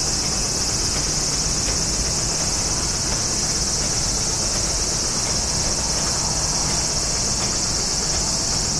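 A steady, high-pitched chorus of cicadas, with a low steady rumble underneath.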